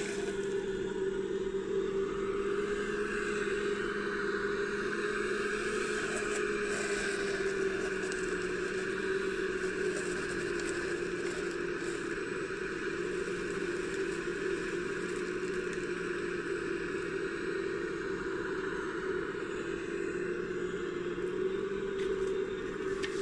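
Motors of a 3D-printed RC model excavator running as the machine swings and digs, a steady whine that wavers only slightly in pitch.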